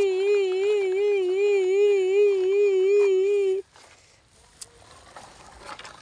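A loud warbling tone that wavers evenly up and down about three times a second, then cuts off suddenly about three and a half seconds in.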